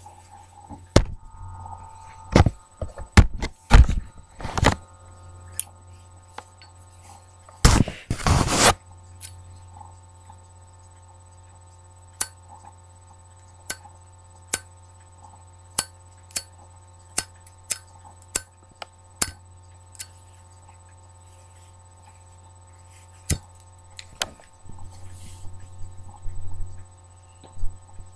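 A pipe smoker puffing on a morta pipe, making short sharp lip-and-stem clicks about a second apart over a steady electrical hum. There are a few louder knocks in the first few seconds and a brief rushing noise about eight seconds in.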